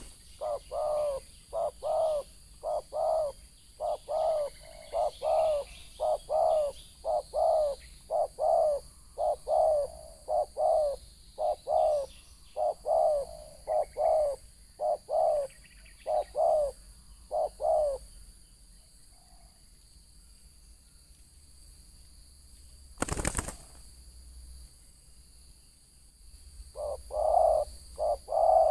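Spotted dove cooing in a long rhythmic series, about two coos a second. It stops about two-thirds of the way through and starts again near the end. A single thump comes in the pause.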